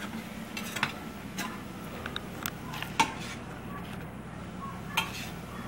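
Spatula stirring scrambled eggs in a stainless steel frying pan, scraping and knocking against the pan with a few sharp clicks, the loudest about three seconds and five seconds in.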